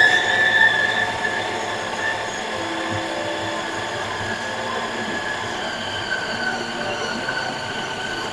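Preethi mixer grinder running steadily, kneading bun dough in its jar: an even motor whine with a few high tones that waver slightly.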